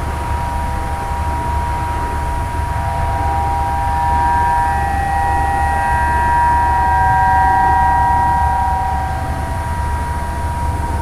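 Several outdoor tornado warning sirens sounding steady tones at once, each at its own pitch; near the end the main tone begins to slide down as a siren winds down. A steady low rumble runs underneath.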